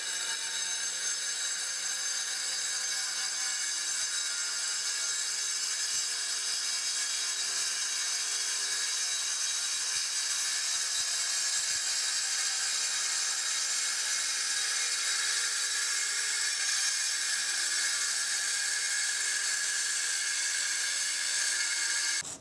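Porter-Cable circular saw with a water-fed diamond blade cutting through a granite countertop slab: a steady high-pitched whine with grinding. It stops abruptly just before the end.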